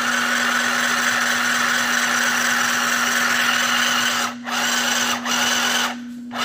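Compact electric sewing machine stitching a seam under foot-pedal control, its motor running steadily. It stops briefly about four seconds in and again a second later, then pauses near the end before a short final burst.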